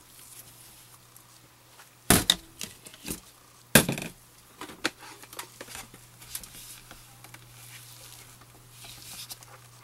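Plastic measuring pitchers and a silicone spatula clattering on a stainless steel worktop. There are a few sharp knocks about two and four seconds in, then lighter taps and handling noises over a faint steady low hum.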